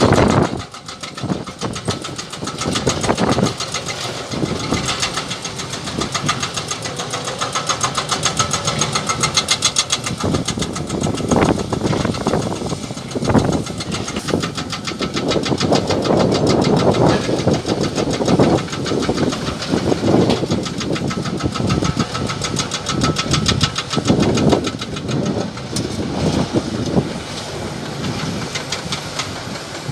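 Heavy hydraulic excavator's diesel engine working under load, with a rapid, even knocking and swells in level every few seconds as the hydraulics are worked.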